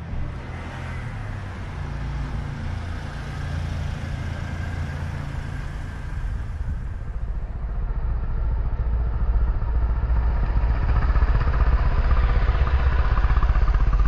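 A motor vehicle's engine running close by, getting louder through the second half.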